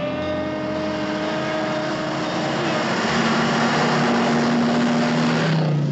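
Cartoon sound effect of a vehicle speeding past: a rushing noise that builds, then cuts off suddenly near the end, with a few held low notes underneath.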